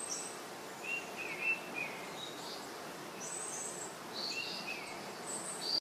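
Birds chirping in short, scattered calls over a steady outdoor background hiss.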